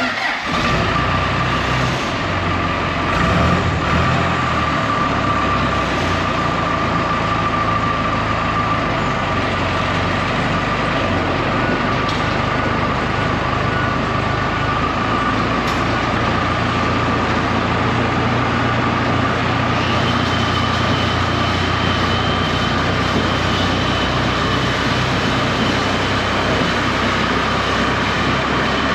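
Diesel engine of a Dressta TD-8H crawler dozer running steadily, with a constant high whine over the engine and a second, higher whine joining about two-thirds of the way through.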